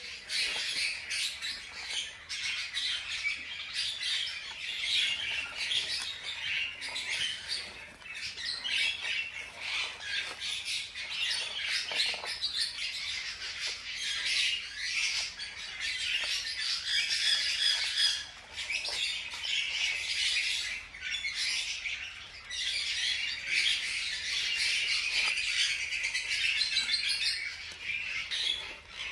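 Newborn hamster pups squeaking: a dense, continuous stream of high-pitched squeaks with no pause.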